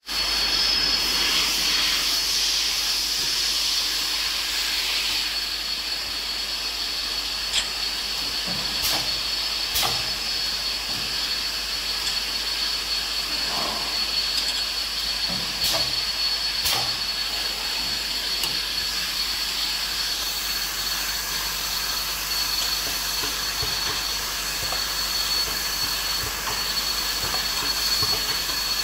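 Automatic jar filling and capping machine running: a steady hiss with a thin, steady high whine over it. A handful of sharp clicks come through the middle of the stretch.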